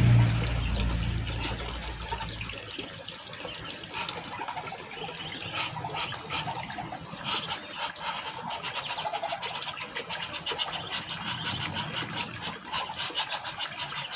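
Ducklings peeping and dabbling on wet ground with water running past, as a run of quick, high peeps and small clicks. A low rumble fades out in the first couple of seconds.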